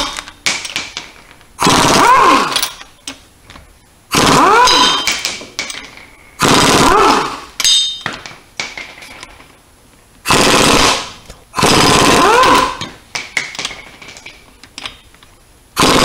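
Pneumatic impact wrench hammering in six bursts of about a second each, its pitch rising and falling within each burst, as it spins the lug nuts off a car's front wheel. Small metallic clicks and clinks between the bursts.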